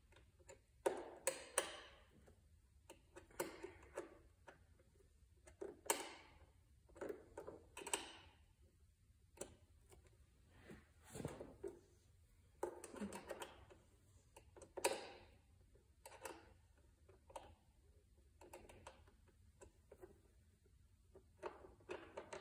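Scattered clicks, clinks and short rattles of a hand tool and fasteners working on a riding mower engine's cover, at irregular intervals with no motor running.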